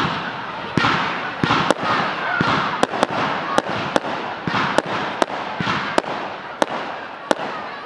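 Fireworks display: a dozen or so sharp bangs of bursting aerial shells, irregularly spaced, over a continuous hiss.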